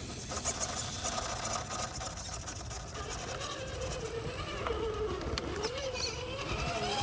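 Electric motor of an RC rock crawler whining, its pitch rising and falling as the throttle is worked, over a steady low rumble.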